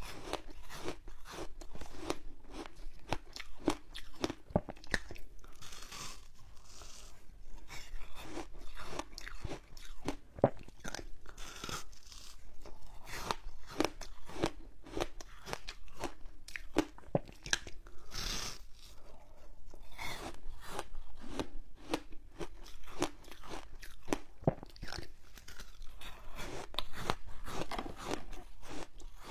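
Crunching and chewing of frozen passion fruit pulp ice with its seeds, close-miked: many irregular crisp crunches a second, with no break.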